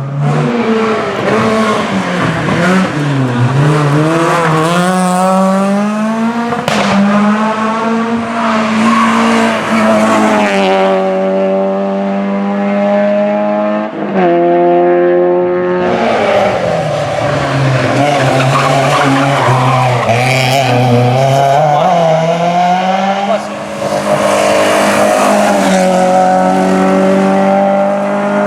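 Rally car engines revving hard through a stage, the note climbing and dropping again and again with gear changes and lifts, with tyre squeal on the loose surface. The sound cuts abruptly a few times as one car gives way to the next.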